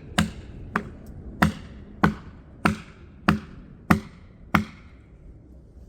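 Repeated sharp blows struck on wood, eight evenly spaced strikes about 0.6 s apart, each ringing briefly. They stop a little past four and a half seconds in.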